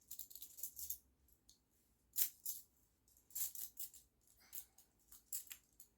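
Plastic magnetic building blocks clicking and clattering as they are handled and stacked, in several short clusters of light clacks with gaps between.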